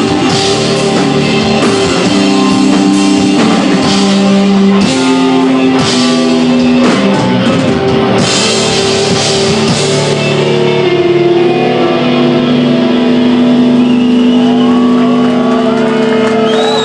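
Live instrumental rock band, with electric guitar, bass and drum kit playing loud. The drums and cymbal crashes stop about ten seconds in, leaving the guitar and bass holding long ringing notes as the song winds down.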